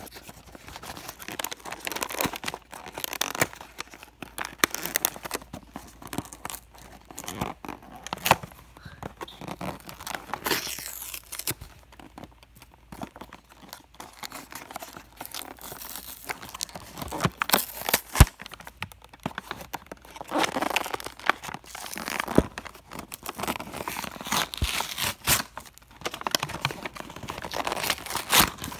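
Toy packaging being torn open and crumpled by hand: irregular tearing, rustling and crinkling with occasional sharp clicks.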